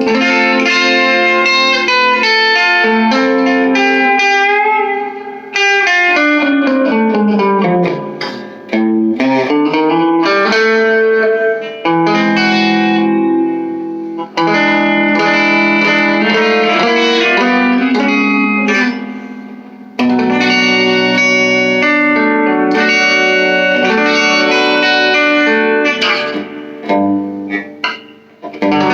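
Electric guitar played through a small all-tube amp, with tone and gain turned fully up and the bridge and neck pickups together: ringing notes and chords, with a slide down in pitch and back up about seven seconds in.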